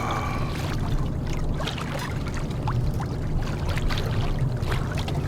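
Water lapping and splashing against a kayak hull in irregular small splashes, over a steady low rumble.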